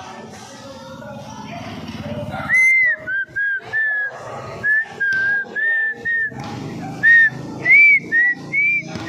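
A person whistling a tune: a run of about a dozen short notes of changing pitch, starting about two and a half seconds in, over background crowd chatter.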